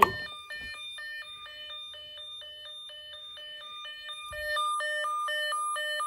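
Electronic alarm tone from a Snap Circuits speaker, stepping back and forth between two pitches several times a second, after a switch click at the start. It is the homemade fire alarm panel's supervisory signal, and it gets louder about four and a half seconds in.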